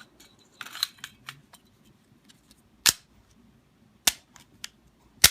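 Handling of a Smith & Wesson Shield 9mm's 8-round magazine: a short rattle of small clicks, then three sharp clicks about a second apart, the last the loudest.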